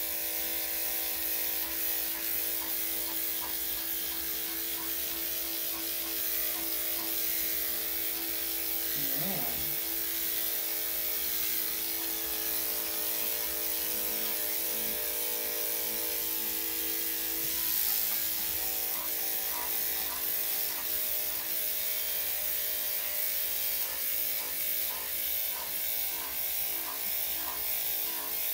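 Electric dog grooming clippers running with a steady hum while shaving off a heavily matted coat.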